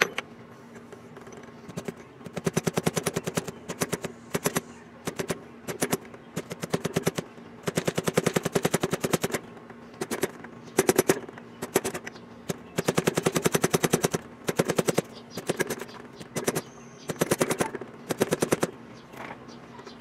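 Rapid light hammer taps on a metal punch set against the housing of a garden-tractor ignition switch held in a bench vise. The taps come about ten a second, in bursts of one to two seconds with short pauses between.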